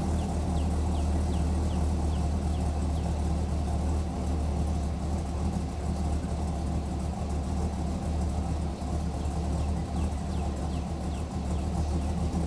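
LSX 376 V8 with long-tube headers, a 3-inch Y-pipe and a Magnaflow 12267 muffler idling steadily, a deep exhaust rumble heard from behind the car.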